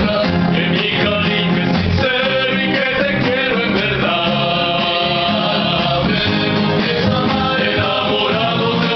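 A rondalla performing: male voices singing together to strummed acoustic guitars.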